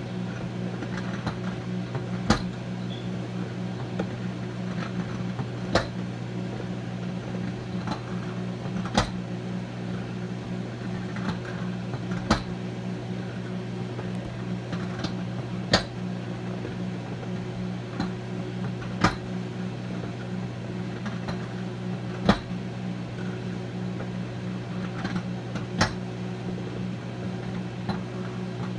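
Microwave oven running with a steady electrical hum and fan noise, while a t-shirt and pants heat inside to dry. A short sharp click comes about every three seconds.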